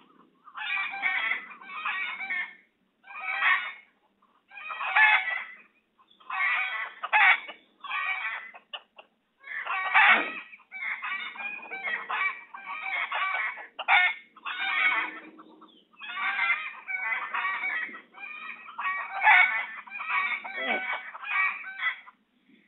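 Domestic fowl calling over and over: a string of short calls about a second apart, with brief pauses between groups.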